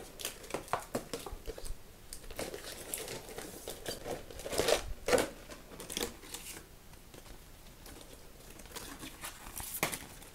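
A toy's packaging being pulled open by hand: the clear plastic blister tray and cardboard backing crinkle and crackle in irregular rustles and clicks, loudest about halfway through.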